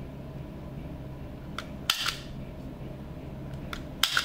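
Pro'sKit CP-367A self-adjusting wire stripper worked twice on a wire, about two seconds apart. Each squeeze gives two sharp snaps in quick succession as the spring-loaded jaws clamp and spring back.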